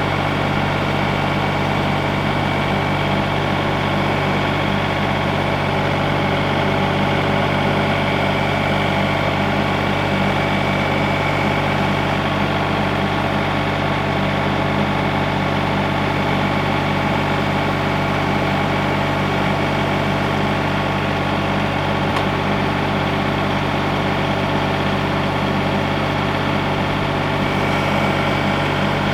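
An engine running steadily at an even speed, a constant low drone with no revving.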